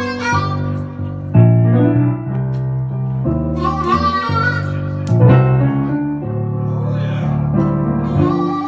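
Live blues played on an electric keyboard, with bass notes and chords, together with an amplified harmonica cupped against the microphone, holding long notes.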